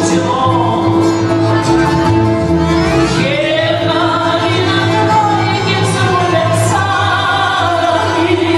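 Live performance of a Russian romance by a folk instrument ensemble of balalaikas and bayan, with a woman singing over it.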